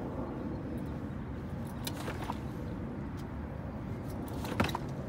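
Light clicks and a metallic jangle as a KTM motorcycle's front forks are pushed down and let spring back with the front brake held, over a steady low outdoor rumble. A sharper clack comes near the end.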